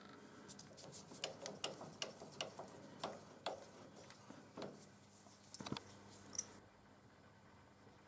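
Faint, irregular light clicks and ticks, a few a second, with two sharper clicks about five and a half and six and a half seconds in, then almost nothing.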